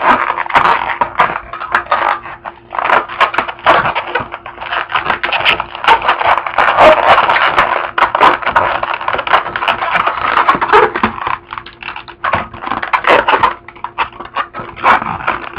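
Latex modelling balloon being handled and twisted close to the microphone: a dense, irregular run of short rubbery clicks and rubs.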